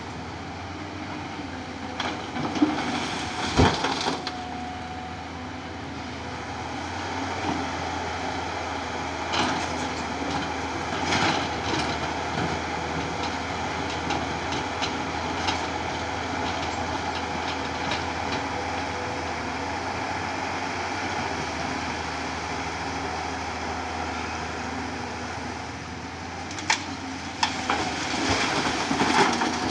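Hydraulic excavator's diesel engine running steadily under load while it loads broken rock into a dump truck, with rocks knocking against the bucket and the steel truck bed. The loudest crash comes a few seconds in, and a run of clattering near the end as a bucketful is dropped into the truck.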